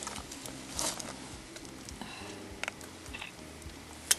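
Faint clicks and rustles of a metal leg band being worked around a bald eaglet's leg, with one sharp metallic click near the end as locking pliers close on the band.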